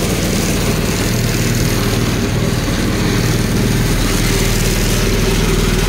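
Small gasoline engine of a mini NASCAR-style go-kart running steadily at a constant speed.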